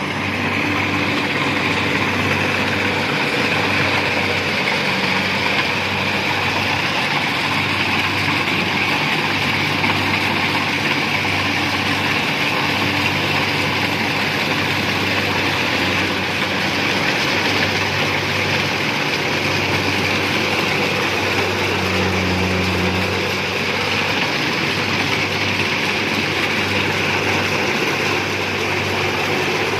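Rice combine harvester running steadily: a low engine hum under a continuous mechanical rush.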